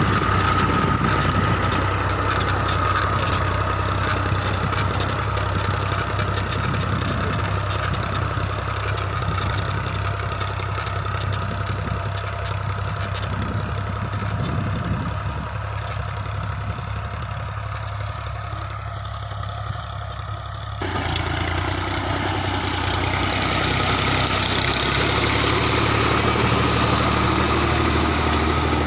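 New Holland Ghazi 65 hp tractor's diesel engine running steadily, with a sudden change in the sound about 21 seconds in.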